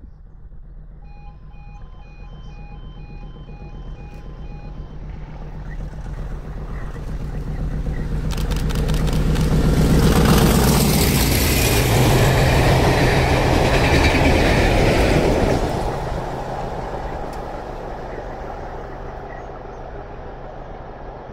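English Electric Class 50 diesel locomotive passing with a train of coaches: its 16-cylinder engine's hum builds as it approaches, peaks loudest about ten seconds in under the rush and clatter of the wheels, then fades away. A pulsing electronic beep sounds for the first few seconds.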